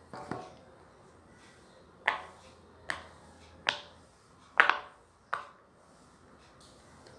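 Silicone Pop It fidget toy bubbles being pressed through one at a time: six sharp pops, one at the start and five spaced a little under a second apart from about two seconds in.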